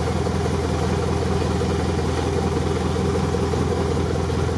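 Off-road truck's engine running steadily at a constant low speed while the truck drives along a flooded muddy track.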